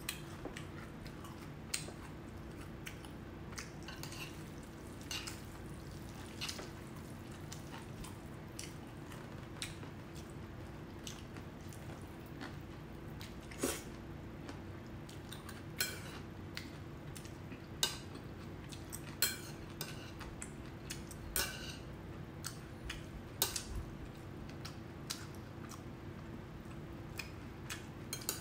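Close-up eating of black bean noodles: wet chewing and slurping, with scattered short clicks of metal chopsticks against the bowl, over a steady low hum.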